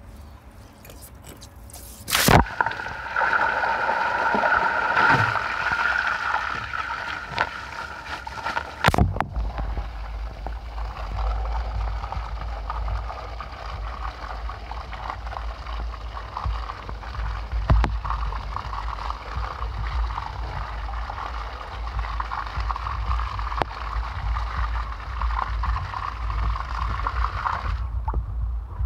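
Water pouring and splashing from the open outlet of a full water tank. About nine seconds in the sound changes to a steady rushing jet as the new brass ball valve is threaded on and water streams through it onto concrete. Near the end the valve is shut and the rush stops.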